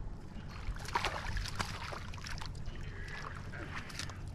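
A hooked crappie splashing and thrashing at the water's surface beside the boat, in irregular bursts, over a steady low rumble of wind on the microphone.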